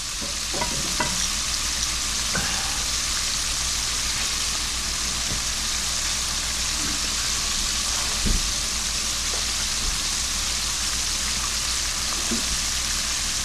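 Frog legs deep-frying in hot oil: a steady sizzle with a few small pops, and a soft knock about eight seconds in.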